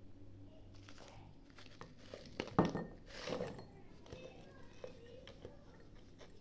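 Small hard biscuits poured from a plastic tub into a small glass jar: a sharp clack of the containers being handled, then a short rustling rattle as the pieces tumble in, followed by light clinks.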